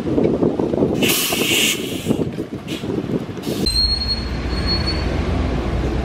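Vehicle noise heard from on board: a rough rumble with a burst of hissing about a second in. It changes abruptly to a steady deep drone with a thin high whine over it.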